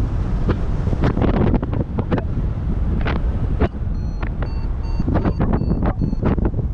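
Wind buffeting the microphone in free flight under a paraglider, in rough gusty rushes. Faint, short, high beeps at changing pitches come in during the last few seconds, typical of a flight variometer signalling lift.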